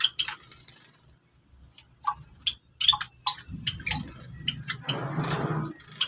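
Java sparrows bathing in a shallow bowl of water: scattered short, sharp splashes, then a longer bout of splashing and wing-fluttering in the water that builds in the second half.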